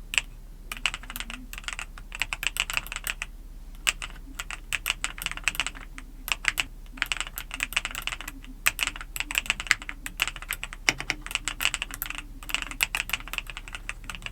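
Mechanical keyboard with LEOBOG Gray Wood V4 switches being typed on fast, a rapid run of crisp key clicks. The typing comes in bursts with a few brief pauses, about a third of a second, around four seconds and a half and near the twelve-second mark.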